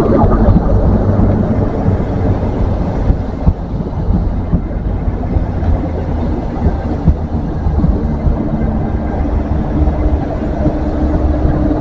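GWR High Speed Train's Mark 3 coaches rolling slowly past along the platform: a steady low rumble of wheels on rail, with a few sharp knocks. Near the end the rear Class 43 power car's diesel engine hum comes in and grows.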